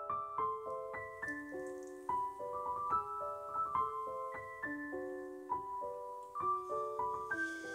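Background piano music: a gentle melody of separate notes, about three a second.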